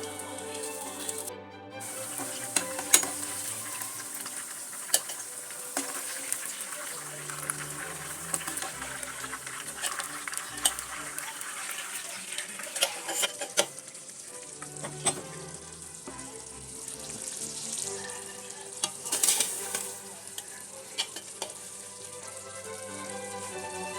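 Food sizzling in a hot pan while it is stirred, with a utensil clicking and scraping against the pan many times throughout. Soft background music runs underneath.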